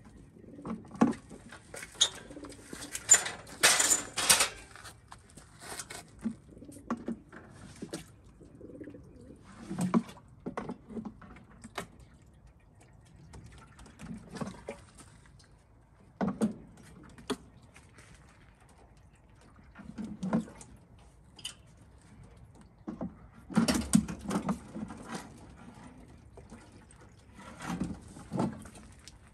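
Pigeons cooing on and off inside metal transport crates, with water splashing from a watering can poured into the crate drinkers, loudest around three to four and a half seconds in and again near twenty-four seconds. Scattered knocks of the can against the metal crate bars.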